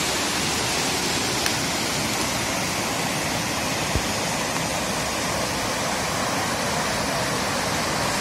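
Fast mountain river rushing over rocks and rapids: a steady, even sound of whitewater.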